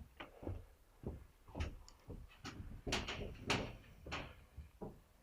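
Footsteps and gear knocking, irregular soft thumps and clicks about two a second.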